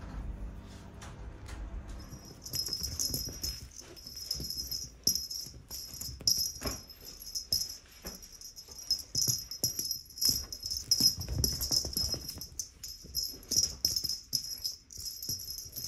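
A domestic cat making small sounds as it moves and plays, with light background music carrying a steady high shimmer from about two seconds in.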